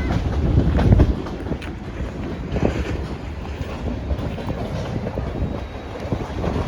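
BNSF freight train's cars rolling past with a steady low rumble and clatter, wind buffeting the microphone; a heavier low thump about a second in.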